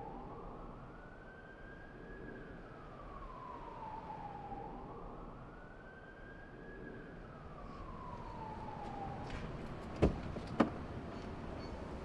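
An emergency-vehicle siren wailing, its pitch rising and falling slowly twice. Near the end, two sharp knocks come about half a second apart.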